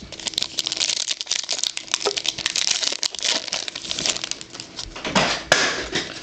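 Crinkling and rustling of a trading-card pack wrapper and cards being handled, with many small clicks of cards against each other. A louder rustle comes about five seconds in.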